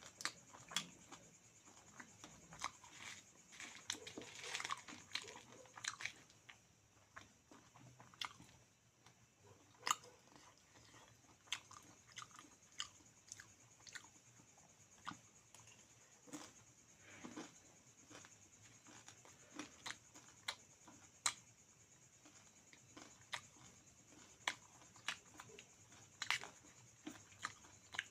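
A person chewing and biting food close to the microphone, with sharp crunches coming at irregular intervals over a steady faint hiss.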